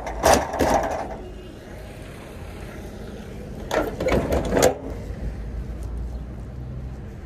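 Metal clatter of a truck trailer's side-board latch handles being worked by hand: a few quick clanks at the start and another cluster about four seconds in, over a steady low rumble.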